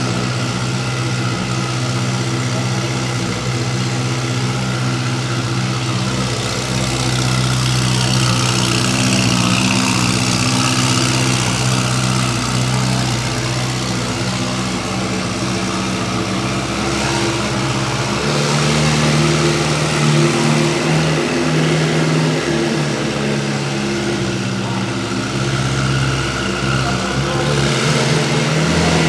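Ferrari 488 Pista's twin-turbo V8 breathing through a Novitec exhaust, idling steadily; the idle steps up to a higher pitch a little past halfway through.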